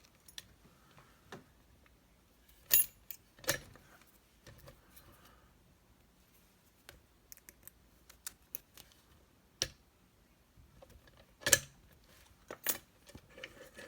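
Metal clicks and clinks from an opened brass American Lock padlock being handled: a handful of separate sharp knocks spread over several seconds, with light rattling between them.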